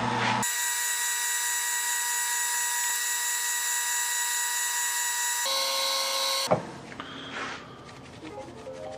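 Wood lathe spinning a cast-resin pen blank at low polishing speed, about 1250 RPM, while polishing paper is held against it: a steady high whine that steps up in pitch about five seconds in and cuts off abruptly about a second later. After that comes a quieter hum of the lathe with a cloth rubbing the blank.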